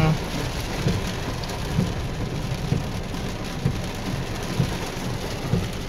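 Heavy rain falling on a car, heard from inside the cabin, as a steady hiss. Under it a soft low thump repeats about once a second.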